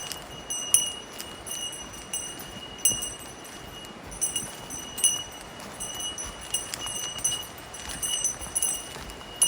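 A small bell jingling in time with walking footsteps. It rings on a steady high tone that is struck afresh about every 0.7 seconds, with the footfalls on the trail.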